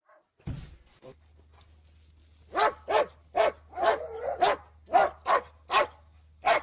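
A dog barking repeatedly: a rapid run of about ten short, sharp barks, roughly two a second, starting about two and a half seconds in, over a low steady hum.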